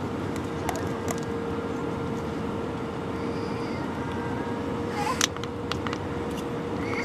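Airbus A320 cabin noise on final approach: a steady rush of engines and airflow with a steady hum underneath. A short sharp sound stands out about five seconds in.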